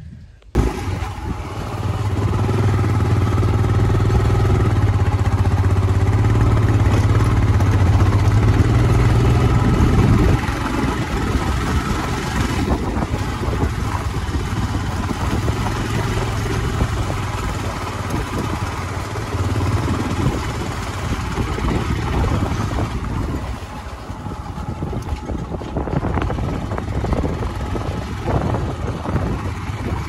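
Royal Enfield Himalayan motorcycle's single-cylinder engine running as the bike is ridden along a rough dirt track. It holds a steady note for about ten seconds, then rises and falls unevenly.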